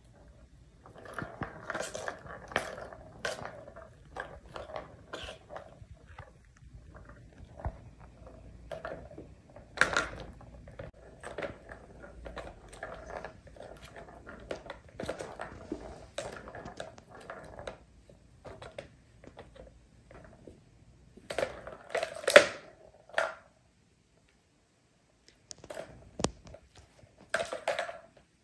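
Plastic balls rolling and rattling round the tracks of a three-tier cat ball-track tower as kittens bat at them, with sharper plastic clacks now and then; the loudest clatter comes about two-thirds of the way through.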